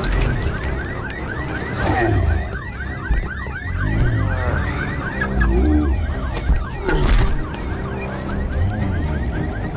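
Emergency siren sounding in fast repeating yelps that each fall in pitch, about five a second, over a heavy low rumble. Heavy thuds come about two seconds in and again near seven seconds.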